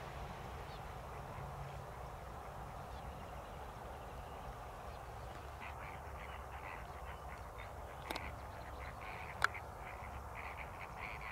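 Steady outdoor hiss, joined about halfway by a run of short, repeated animal calls, several a second; a single sharp tick near the end.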